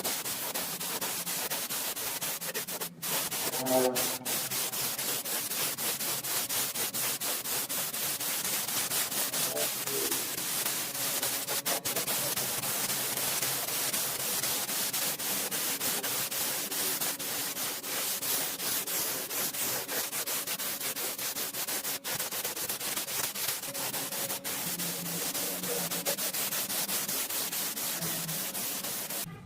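Steady abrasive rubbing against a hard surface, like sanding, with a dense texture of fine rapid scratches; it runs without a break and cuts off sharply near the end.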